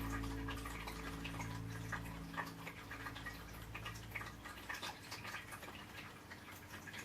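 Quiet background music whose low held notes die away over the first few seconds, with faint light ticks scattered throughout.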